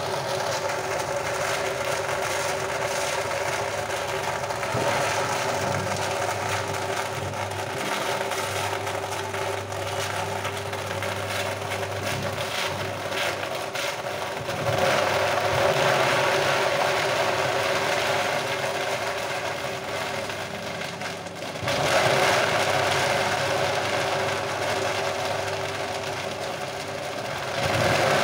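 An electric foam shredding machine running steadily as it chops foam scraps into crumbs. It grows louder about halfway through and again a little over three-quarters of the way, as more foam is pushed into its hopper and cut.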